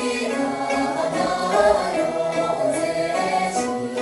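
Tibetan song performed over the hall's sound system: singing voices over instrumental accompaniment, with a few light percussive strikes later on.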